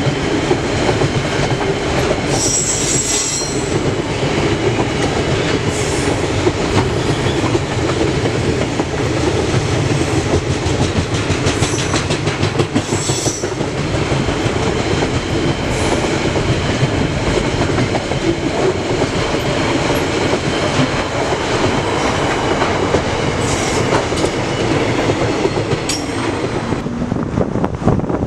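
Container wagons of a KiwiRail freight train rolling past at speed: a steady rumble of steel wheels on rail with clickety-clack from the rail joints, and brief high-pitched wheel squeals now and then.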